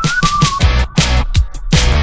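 Electronic background music with a steady, fast drum beat and a short high melody line near the start.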